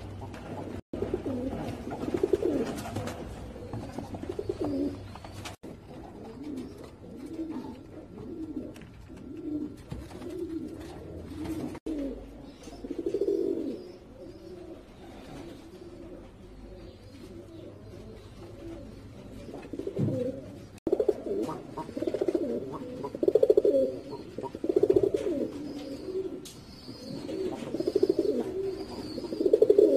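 Fancy pigeons cooing over and over, several birds calling, louder and busier in the last third, with a few brief gaps.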